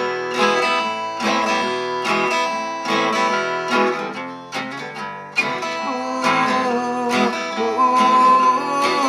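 Acoustic guitar strummed in a steady rhythm as the instrumental intro to a song, with a sustained higher note joining near the end.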